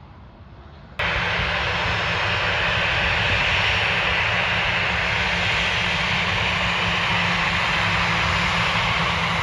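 Jet aircraft engines running loud and steady, a broad jet roar with a low hum underneath, cutting in suddenly about a second in.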